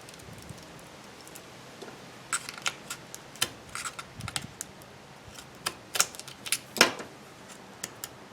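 Pry tool clicking and scraping against an iPhone 5's battery and casing as the battery is levered up off double-sided adhesive tape that is sticking tight. Irregular sharp clicks begin about two seconds in and come thicker and louder toward the end.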